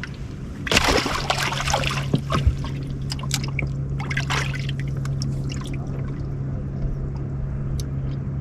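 Water trickling and splashing, loudest about a second in and again around four seconds, with scattered light clicks over a steady low hum.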